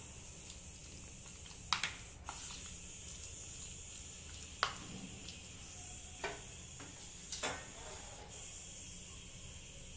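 A hand squishing and mixing marinated chicken pieces with rice flour and cornflour in a plastic bowl: a handful of short squelches and clicks over a faint steady hiss.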